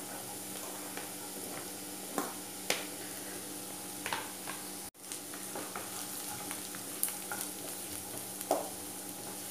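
Chopped carrots and onions sizzling in hot oil in a frying pan, with a few sharp taps against the pan as they are stirred. The sound cuts out for an instant near the middle.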